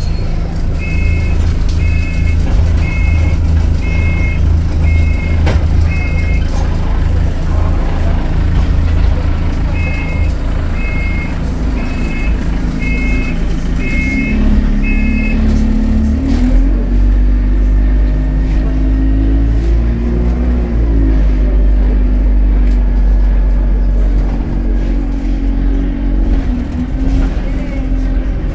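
Alexander Dennis Enviro200 single-deck bus engine running with a deep, steady drone. Over it come two runs of six electronic beeps, about one a second, in the first half. In the second half the engine note rises and falls several times.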